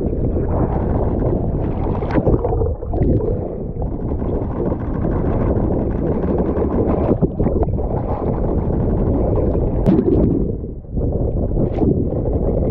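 Strong wind buffeting an open microphone at sea level, with choppy seawater rushing and slapping close by and several short, sharp splashes.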